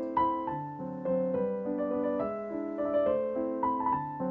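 Background piano music: a slow melody of struck, ringing notes over a lower accompaniment.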